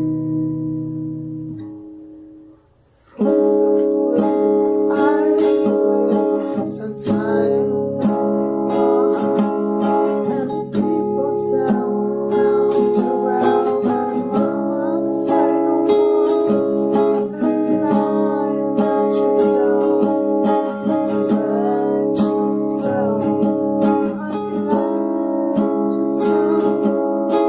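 Rock music led by strummed acoustic guitar: a held chord dies away to near silence about two and a half seconds in, then the full band comes back in.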